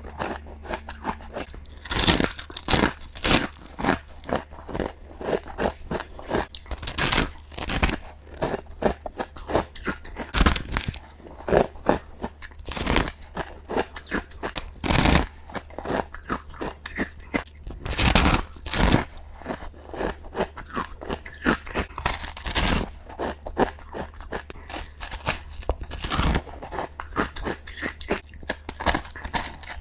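Close-up crunching of humidifier top ice being bitten and chewed, rapid crisp bites several times a second, irregular, over a faint steady low hum.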